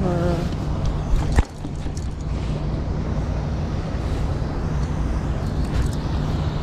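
Steady low rumble of wind and river flow on the microphone, with a single sharp knock about a second and a half in.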